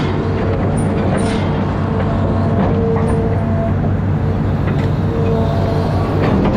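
Amphibious excavator's diesel engine running steadily under work, with a higher whine that comes and goes and a few short clanks.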